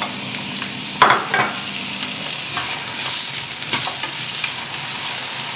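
Raw potato sticks sizzling as they start to fry in hot oil in a frying pan, with a sharp clack about a second in and a few lighter taps.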